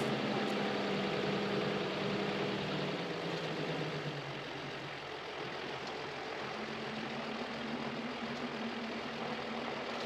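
Toyota Land Cruiser Troop Carrier's engine running as it rolls slowly at low speed, with road and wind noise. The engine note eases off about three seconds in and comes back a few seconds later.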